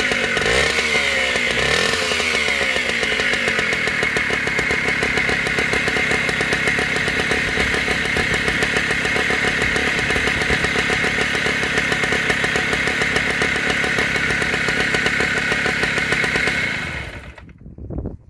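Yamaha 5 hp air-cooled outboard engine running, its speed rising and falling on the tiller throttle for the first couple of seconds, then running steadily. It shuts off about a second before the end.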